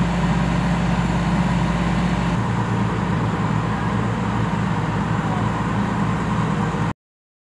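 Steady hum of an idling diesel railcar engine, with constant low tones; the deepest rumble drops a little over two seconds in, and the sound cuts off suddenly near the end.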